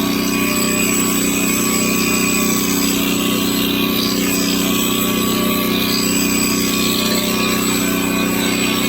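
Electric clippers running with a steady, continuous buzz.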